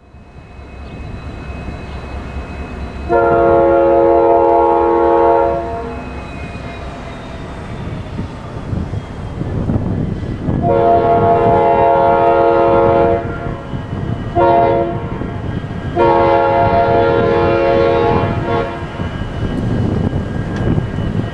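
Union Pacific freight locomotive's multi-chime air horn blowing the grade-crossing signal: two long blasts, a short one, then a long one. Underneath, a low diesel rumble grows steadily as the train approaches.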